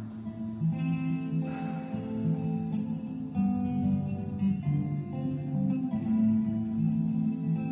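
Acoustic guitar played solo, picked notes ringing over one another, with a brighter strummed chord about a second and a half in and again about six seconds in.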